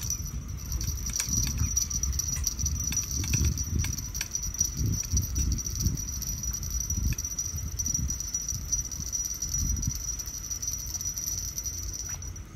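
Steady, high-pitched trill of night insects over uneven low rumbling noise, with a few faint clicks and taps.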